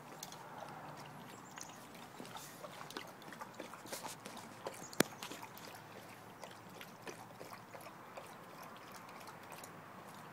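Tibetan Mastiff lapping water from a stainless steel bowl: a run of irregular wet laps and splashes, with one sharper click about five seconds in.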